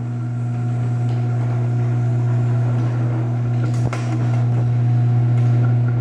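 Chamberlain LiftMaster MyQ garage door opener's motor running as it drives the door down, a steady hum that grows slightly louder, with a faint click about four seconds in. This down run is the opener learning the door's closing force.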